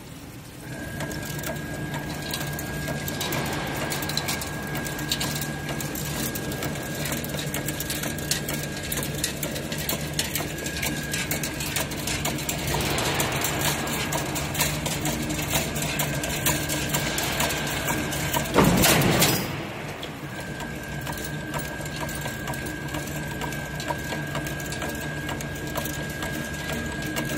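Automatic chain link fence weaving machine running on its own, a steady motor hum and a steady high whine under fast, even mechanical clatter. About two-thirds of the way in there is one louder, noisy burst lasting about a second.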